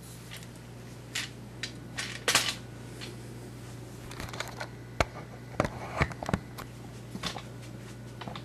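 Handling noise from a handheld camera being picked up and moved: irregular sharp clicks and knocks, over a steady low hum.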